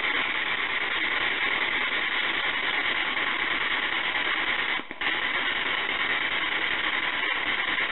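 Steady hiss of background noise from a boosted audio recording, strongest in the upper range, with two brief dropouts, one about five seconds in and one near the end.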